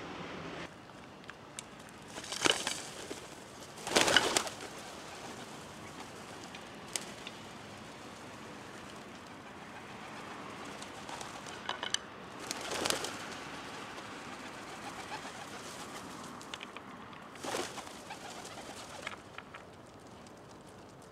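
Feral pigeons and crows around a feeding spot: several short, loud bird sounds over a steady outdoor background, the loudest about four seconds in, with others near the middle and about two-thirds through.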